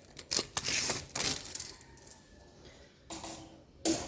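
Metal tape measure being handled and its blade pulled out, a run of clinking, rattling clicks and then a couple of short knocks.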